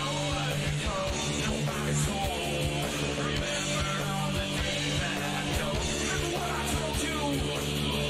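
Background rock music with guitar and a singing voice.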